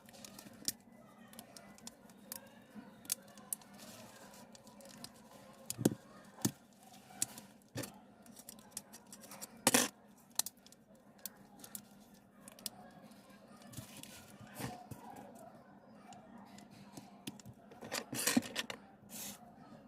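Irregular small clicks and taps of tools and phone parts being handled during a smartphone screen repair, a few sharper knocks among them, over a faint steady hum.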